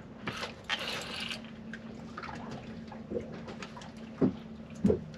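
Water lapping and dripping against the hull of a small boat, with three short soft knocks in the second half over a steady low hum.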